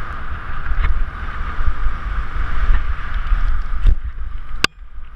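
Mountain bike riding fast down a dirt trail, heard through a helmet-mounted GoPro Hero 3 with wind rumbling on its microphone, over a steady hiss and scattered knocks from the bike. About four and a half seconds in there is a sharp click, after which the noise drops away for about half a second.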